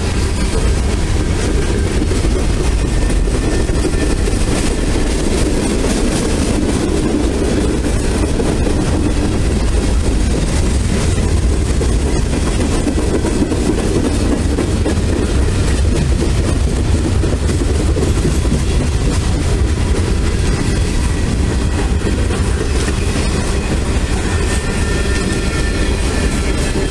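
Freight train cars rolling past: a steady rumble and clatter of steel wheels on the rails.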